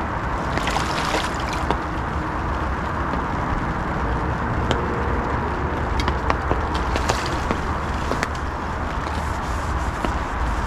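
Water sloshing and trickling over a steady low rumble, with scattered small sharp clicks.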